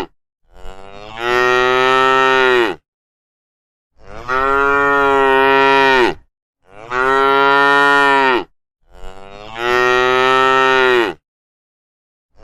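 Cows mooing: four long moos of about two seconds each, every one swelling up and dropping in pitch at its end, with dead silence between them.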